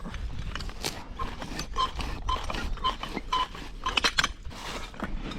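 Knocks and scrapes of hand tools working on a concrete job, with a short high beep repeating about twice a second through the middle, like a reversing alarm.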